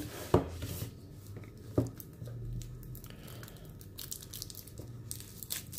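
Cardboard packaging being handled: soft rustles and faint ticks of paperboard, with a sharper tap about a third of a second in and another near two seconds in.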